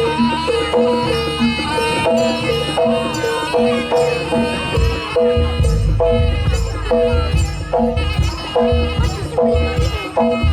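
East Javanese jaranan (kuda lumping) music: an ensemble of tuned gong-chimes and drums plays a steady, repeating pattern of short notes. Heavier low drumming comes in about five seconds in.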